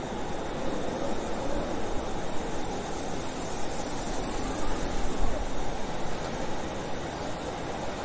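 Blizzard wind blowing hard, a steady rushing noise that swells and eases in gusts, loudest about five seconds in.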